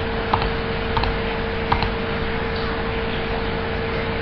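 Steady background hiss with a constant hum, broken by a few faint, short clicks.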